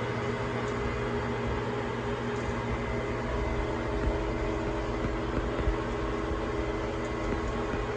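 Sharp 1440 gearhead engine lathe running steadily, its headstock gears giving a steady whine over the motor's hum, with a couple of light knocks.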